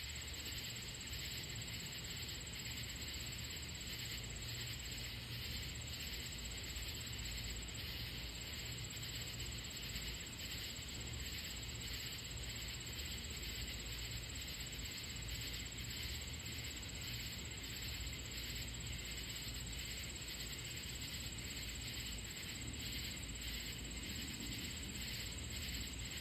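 Katydids calling in a steady night-time chorus, a continuous shrill pulsing with a thin steady high whine above it. A low rumble runs underneath.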